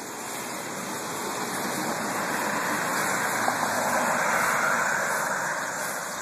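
A car passing on the road, its tyre and road noise swelling gradually to a peak about two-thirds of the way through and then fading away.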